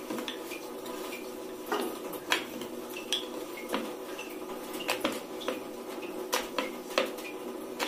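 Wooden rolling pin rolling out a stuffed paratha on a metal rolling plate, giving irregular clicks and knocks as the pin and plate rattle, over a steady low hum.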